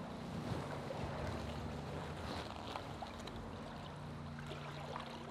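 Wastewater flowing through a sewer channel: a steady rushing with a low hum underneath and a few faint ticks.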